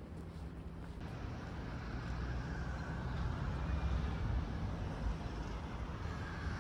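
Low rumble of a vehicle, building over the first few seconds and easing a little near the end.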